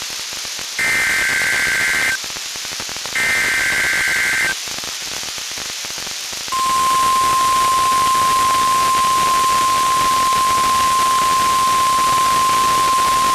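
NOAA Weather Radio SAME header: two bursts of warbling two-pitch data tones about a second apart, with radio hiss between them. About six seconds in, the steady single-pitch 1050 Hz warning alarm tone starts. Both are sent as a required weekly test of the specific area message encoding and tone alert systems.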